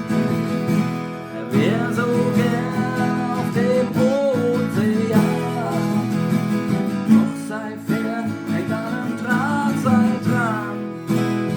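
Strummed acoustic guitar playing a song, with a voice singing over it in two stretches.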